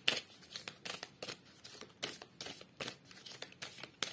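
A deck of tarot cards being shuffled by hand: a quick run of short papery swishes and slaps, about three or four a second.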